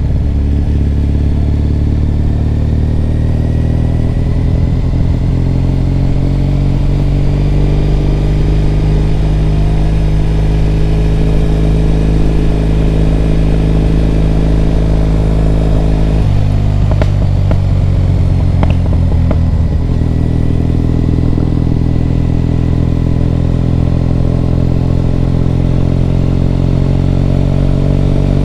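Triumph Bonneville T100 parallel-twin engine running under way, a steady note that rises and falls gently in pitch. About sixteen seconds in the note changes, with a few brief clicks, before it settles again.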